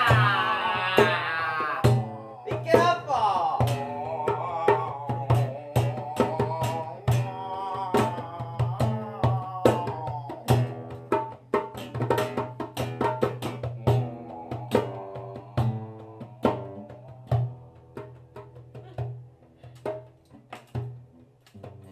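Live folk band music: hand percussion struck in a quick, uneven pattern over a steady low held note, with a gliding, wailing voice in the first few seconds. The playing gradually gets quieter toward the end.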